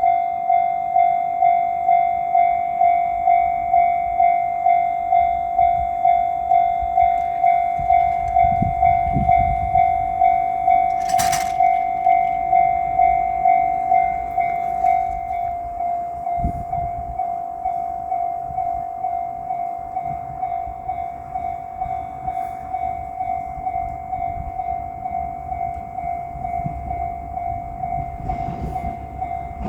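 Japanese railway level-crossing bell ringing its steady 'kan-kan' at about two strikes a second, dropping in volume about fourteen seconds in. Under it runs the low rumble of an approaching diesel train, with a brief sharp burst about eleven seconds in.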